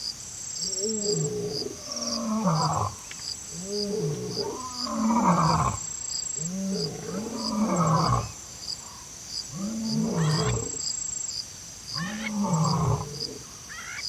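A large animal calling over and over, about six low calls that each rise and fall in pitch and end in a downward slide, roughly every two seconds. Insects chirp steadily in high, even pulses behind it.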